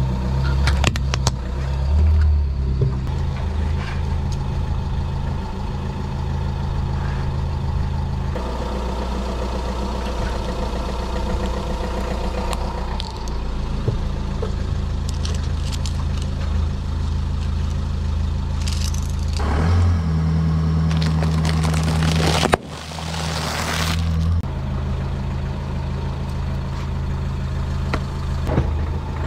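Car engine idling steadily close to the front tyre, its hum shifting at several cuts, with scattered crackles and crunches of plastic toys being run over and a brief rushing noise about three quarters of the way through.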